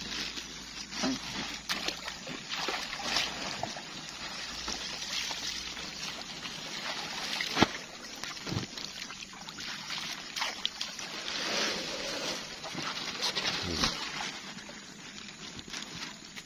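Water sloshing and splashing at the edge of a pond as bags of live carp are untied and emptied into it, with scattered crinkles and clicks from the plastic bags. One sharp click stands out about seven and a half seconds in.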